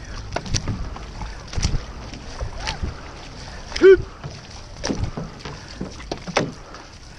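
Outrigger canoe being paddled by its crew: paddle blades catching and pulling through the water about once a second, with splashes and knocks against the hull. About four seconds in there is a short, loud shouted call from one of the paddlers.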